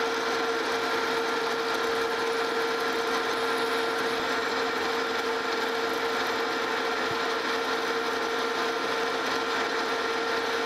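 Monarch Model K metal lathe running steadily while a 35/64-inch twist drill bores into hex stock turning in the chuck, drilling the hole for a 5/8-11 tap. A steady, unchanging whine runs under the cutting noise.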